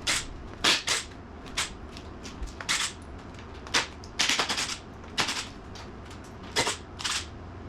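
Impact wrench zipping out 11 mm valve-cover bolts in short bursts, about ten brief rattles at uneven intervals, the longest about half a second, a little past the middle.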